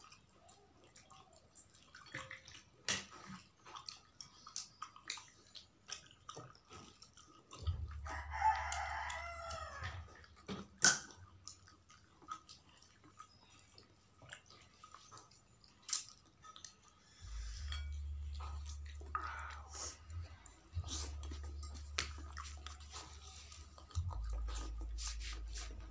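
Mouth sounds of eating snapper-head curry by hand: wet chewing, lip smacks and sharp sucking clicks. A rooster crows once in the background about eight seconds in, and a low rumble comes and goes.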